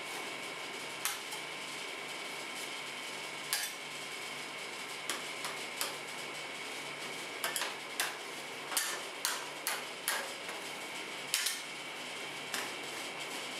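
Metal spatulas scraping and tapping on a steel cold plate as rolled-ice-cream mixture is spread thin. About a dozen short, irregular scrapes and clicks come, busiest around the middle, over a steady high-pitched hum.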